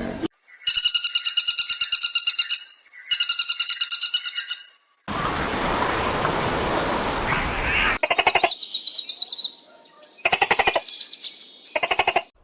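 A run of different short animal calls, one after another: two rapid, high-pitched chirping trills, about three seconds of hissing, then bursts of high squeaky chattering near the end.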